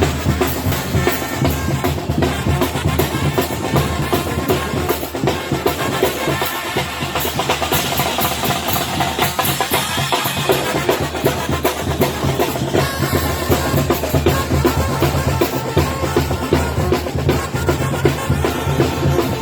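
Mexican banda, a wind band with drums, playing live: fast, dense drum strokes over sustained low bass notes.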